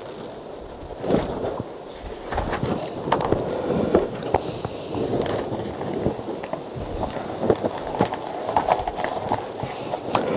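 Paper pages of a book being leafed through and handled: a run of irregular crackling rustles and flicks starting about a second in.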